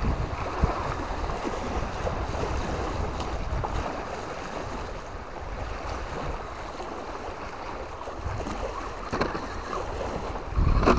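Wind buffeting the microphone over a steady rushing noise, the low rumble heaviest at the start and again near the end.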